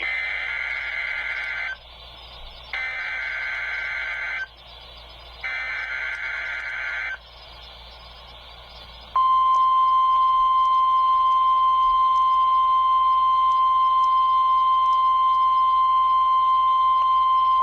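NOAA Weather Radio Required Weekly Test: three short bursts of SAME digital header data, each under two seconds, announce the test. About nine seconds in, the steady, louder 1050 Hz public warning alarm tone starts and holds.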